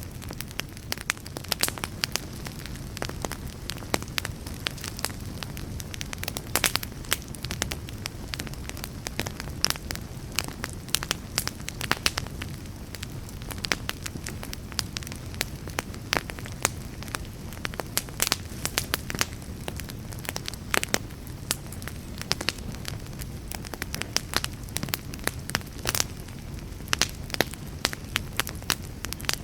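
Campfire burning, with a steady low rumble of flames and frequent sharp crackles and pops of burning wood, several a second.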